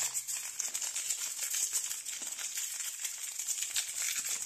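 Foil snack-style blind-bag packet crinkling and crackling continuously as hands pull it open and work it apart.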